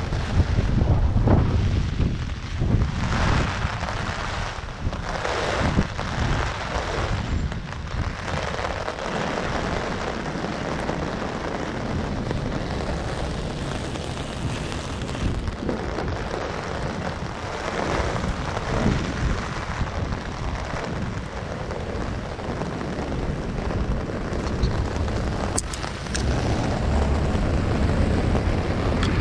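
Strong storm wind gusting against a GoPro's microphone, a heavy low rumble with the hiss of heavy rain. The gusts come in surges for the first several seconds, then settle into a steadier blast that picks up again near the end.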